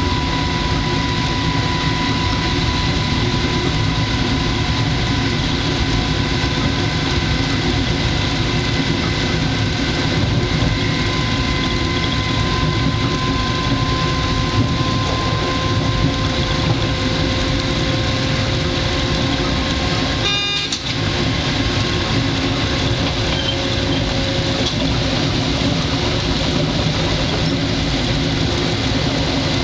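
Steady running noise in the driver's cab of a classic NMBS electric multiple unit at speed: a low rumble of motors and wheels on the track, with a thin steady whine that fades out partway. There is one short break about twenty seconds in.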